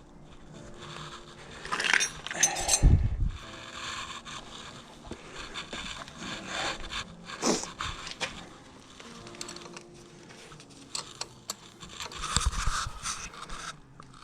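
Hand tools working loose the rear axle nuts of a Ural motorcycle: metal scraping and rubbing, with louder clanks about two to three seconds in and again near the end.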